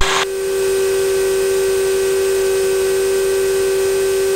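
Steady engine drone in the cabin of a taxiing Europa light aircraft: an unchanging hum held at one pitch with several fainter overtones above it, starting as a radio voice cuts off just after the start.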